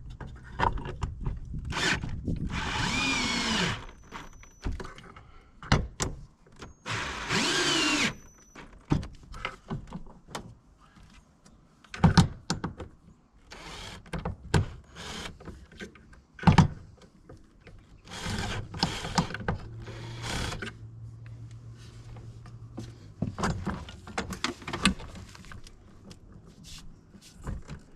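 Power drill driving mounting screws for an RV door assist rail in runs of a second or two: one a couple of seconds in, another a few seconds later, and a third about two-thirds of the way through. Between the runs come clicks and knocks of the screws and rail being handled, with two sharp knocks near the middle.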